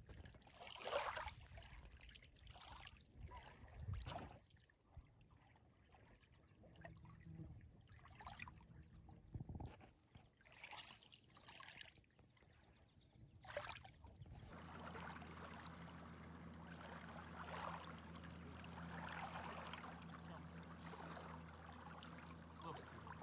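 Faint small waves lapping and trickling over the stones of a shallow lakeshore, in soft irregular splashes. About 14 seconds in, this gives way to a faint steady outdoor hiss.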